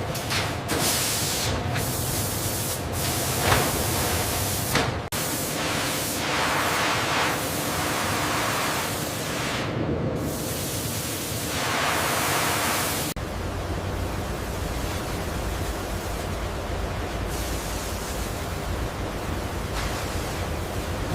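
Loud, steady hissing noise that surges and changes abruptly about five seconds in and again about thirteen seconds in, after which it settles into an even hiss over a low hum.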